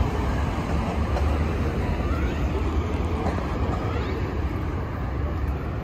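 Outdoor city ambience on a busy pedestrian waterfront: a steady low rumble with faint, scattered voices of passers-by.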